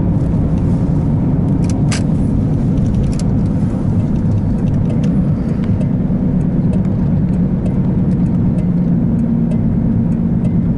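Steady engine and road noise of a car driving, heard from inside the cabin as a continuous low rumble, with scattered faint ticks.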